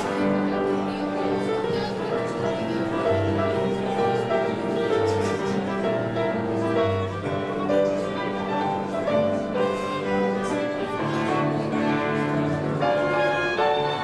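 Slow background instrumental music with long held notes, in a classical style.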